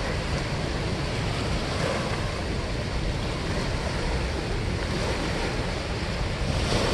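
Steady rush of churning water pouring through a dam spillway.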